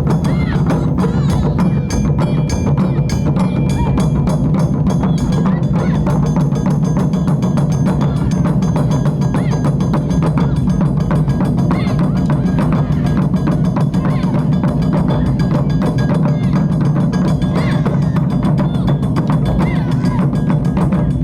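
Japanese taiko drum ensemble playing a dense, fast run of drum strokes without a break.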